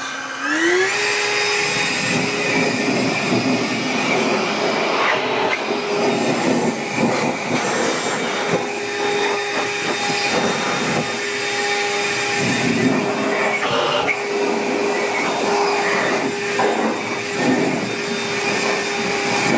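Battery-powered brushless backpack leaf blower spinning up with a rising whine just after the start, then running steadily: a constant motor whine over a loud rush of air.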